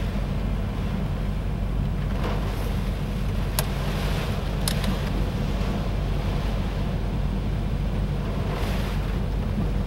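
Hurricane-force wind and driving rain, a steady low rumble and hiss, with two short sharp clicks about four seconds in.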